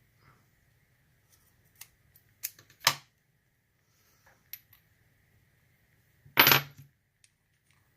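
Scattered sharp metallic clicks and clinks from a lock cylinder and picking tools being handled while the plug is worked out with a follower. A louder clack comes about six and a half seconds in.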